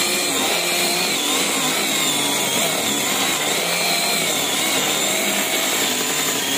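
Kamolee battery-powered mini chainsaw with a 4-inch bar running steadily while cutting into a kapok tree trunk: an electric motor whine over the rasp of the chain, its pitch wavering slightly under load.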